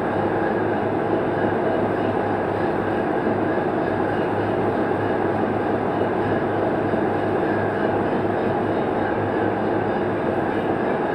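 Tugboat's diesel engines running steadily: an unbroken drone with a constant low hum.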